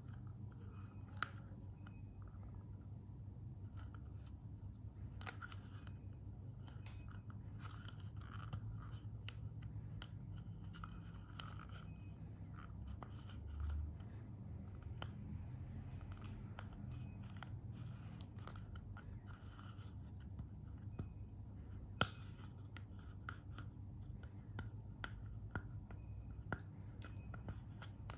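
Fingers and fingernails handling a hard plastic screw-on bottle lid: scattered light clicks, taps and scratches of nail on plastic, with one sharper click about 22 seconds in, over a low steady hum.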